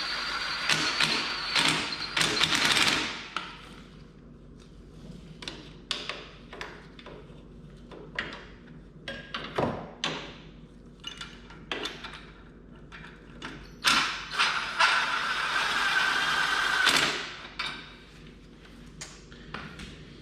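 Tools working on a lawn tractor's engine: scattered metal clicks, taps and knocks, with two stretches of steady mechanical whirring lasting about three seconds each, one at the start and one about two-thirds of the way in.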